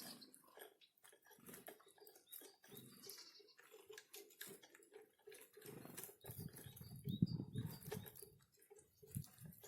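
Small forest birds at a winter feeding spot: light taps, wings fluttering and a few faint high chirps. A louder low rustling rumble comes a little past the middle and lasts about two seconds.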